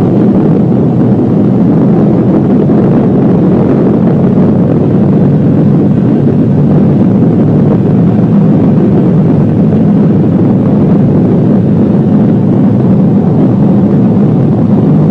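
A loud, steady, low rumbling roar with a faint even hum running through it.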